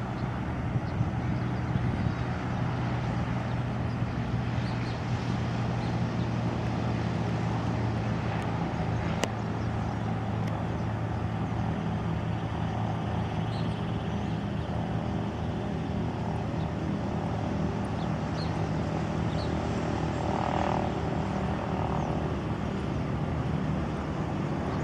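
Twin-engine jet airliner on its landing approach with gear down: a steady, low engine drone.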